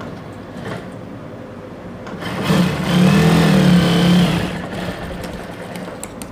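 Industrial lockstitch sewing machine running in one burst of about two seconds, speeding up and then easing off as it stitches a pleat into organza, over a steady fan hum. A few sharp clicks of scissors near the end.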